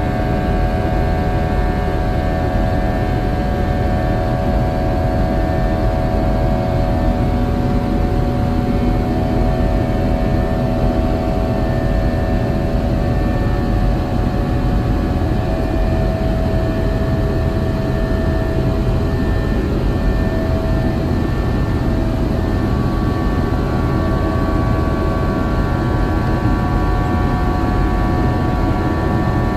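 Airbus A321's IAE V2500 turbofan engines running at climb power after takeoff, heard from inside the cabin: a steady rumble with several whining tones held on top.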